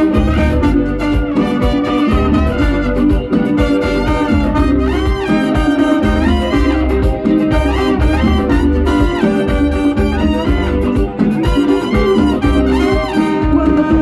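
Live Latin band playing an instrumental passage of a merengue, with trumpets leading over a steady beat.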